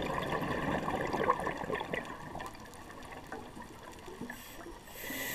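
Scuba diver's exhaled breath bubbling out of the regulator, loudest at first and fading over a few seconds. Near the end the hiss of the next breath drawn through the regulator starts.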